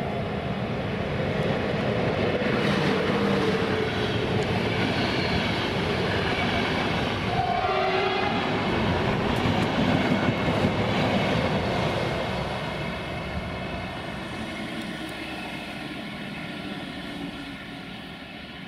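Electric-locomotive-hauled passenger train passing through the station, the wheels on the rails and the coaches rolling past close by. The noise dies away steadily over the last several seconds as the train draws off.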